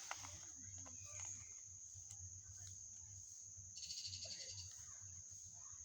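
Faint clicks of a 2×2 Rubik's cube being twisted, over a steady high-pitched whine and low hum, with a brief high chirp about four seconds in.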